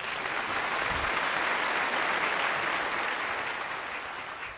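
Audience applauding, easing off slightly toward the end.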